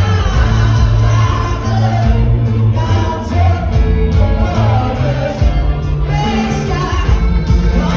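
Music with singing over a heavy, steady bass line.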